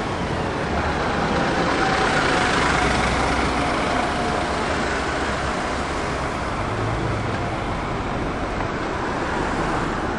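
Heavy road vehicle running close by amid street traffic: a steady engine rumble with tyre and road noise. A faint whine rises over it from about a second and a half in and fades a few seconds later.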